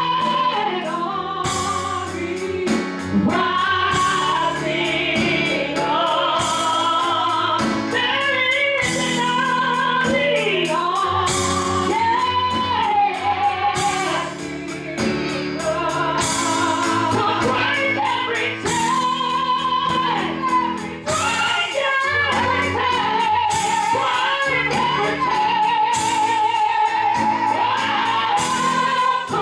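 Live gospel worship music: a sung melody with vibrato and long held notes over a band, with bass notes and regular cymbal strikes.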